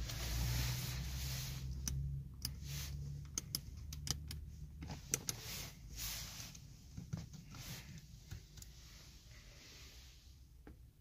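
A Mercedes E270 CDI's five-cylinder diesel hums low in the background while cabin buttons and switches are pressed, giving a string of sharp separate clicks, including the door's window switches.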